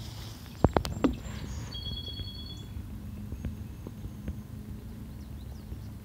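Outdoor background with a steady low hum; a few sharp knocks about a second in are the loudest sound, followed by a brief steady high whistle and a few faint high chirps near the end.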